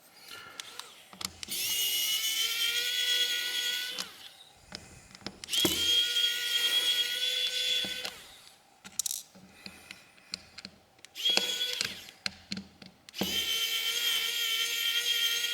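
Small electric screwdriver whirring in four runs with a steady high whine, backing out the tiny screws of a phone's midframe, with light clicks between runs.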